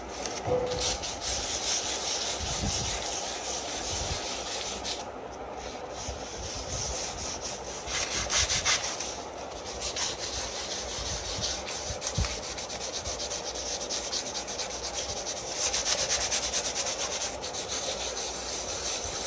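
Used motor oil being rubbed into a wooden skirting board: a continuous scratchy rubbing over the wood grain, broken by a couple of short pauses.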